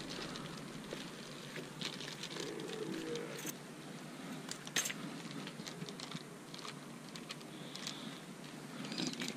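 Scattered light clicks and rattles of a wire crab pot and its rope being handled, over a faint rustling.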